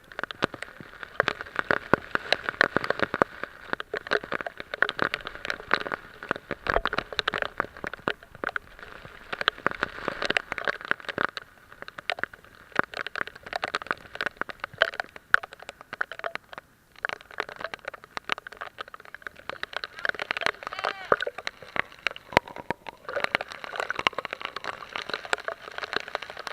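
Rain falling, a dense, continuous patter of drops striking a surface.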